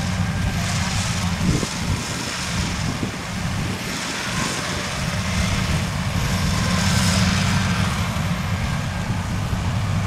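Kubota DC70 crawler combine harvester running steadily as it cuts and threshes rice, a low engine drone under a broad mechanical hiss.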